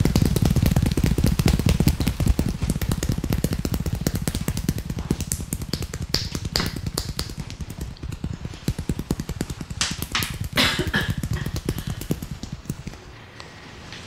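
Rapid percussive hand-tapping massage on the shoulders and upper back: a fast, steady run of slaps from the barber's hands. It is fuller and deeper at first, then thins to sharper claps and fades toward the end.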